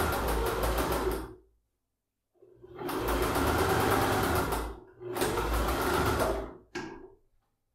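Electric domestic sewing machine stitching a seam through layered fabric, running in three spells: it stops about a second and a half in, starts again after about a second, dips briefly and runs once more. A short click follows near the end.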